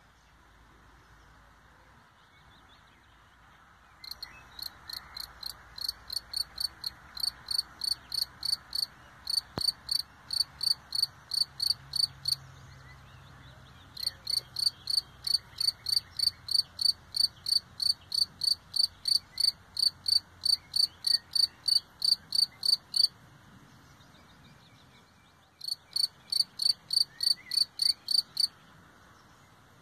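European field cricket singing its calling song: a high, clear chirp repeated about three times a second. It starts about four seconds in and comes in three bouts with short pauses between.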